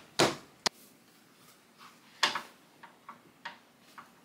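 A stack of paper sheets knocked edge-down on a tabletop to square them up: a dull knock at the start, a sharp click, another knock about two seconds in, then several light taps as the sheets are patted even.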